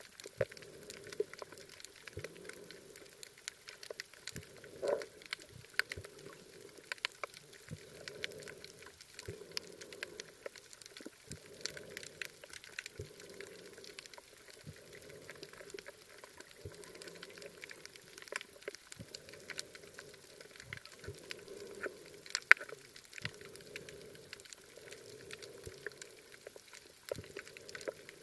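Underwater crackling of a coral reef: a dense, irregular patter of sharp clicks, typical of snapping shrimp, over a soft wash of water that swells and fades. One click about 22 seconds in is louder than the rest.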